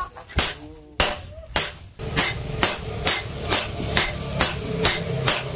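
Hand hammer striking a red-hot sword blade on a small iron anvil, forging it. There are three spaced blows, then from about two seconds in a steady rhythm of about two blows a second, each with a bright metallic ring.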